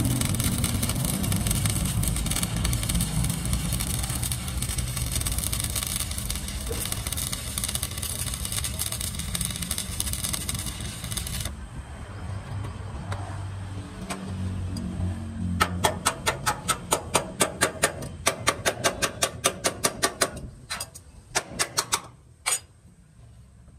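Stick (arc) welding on a steel truck chassis rail: the electrode's arc crackles and hisses steadily, then stops about halfway through. After a short pause a chipping hammer strikes the fresh weld in a fast run of sharp taps, knocking off the slag, with a few last taps near the end. A low engine-like hum runs underneath.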